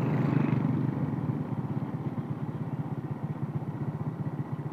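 Motorcycle engine running while being ridden, a steady pulsing hum heard from the rider's seat. It is a little louder in the first second or so, then settles lower.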